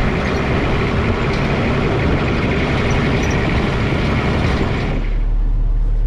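Off-road 4x4 driving: engine running under road and rattle noise. About five seconds in, the sound changes abruptly to a steadier, duller low hum.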